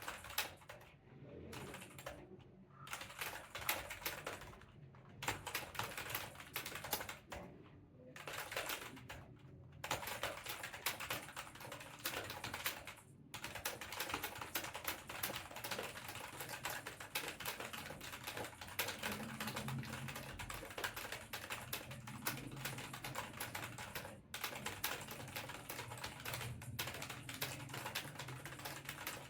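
Fast typing on a mechanical keyboard: rapid, dense key clacks in spurts with brief pauses during the first ten seconds, then near-continuous.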